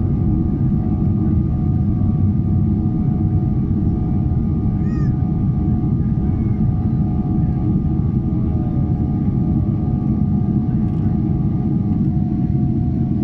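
Cabin noise of a Boeing 777-300ER climbing after takeoff, heard from a seat over the wing: a steady roar from its GE90-115B engines, with a steady whine that fades about twelve seconds in. A short high-pitched sound cuts through about five seconds in.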